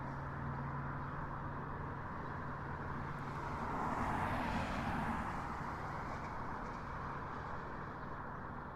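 Busy street traffic: steady road noise with a low engine hum, swelling as a vehicle passes about four to five seconds in.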